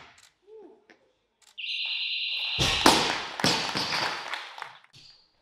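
A steady high electronic beep lasting about a second, the competition's down signal, then a loaded barbell with bumper plates dropped from overhead onto the wooden platform: a heavy thud, a second thud as it bounces, and a rattle as it settles.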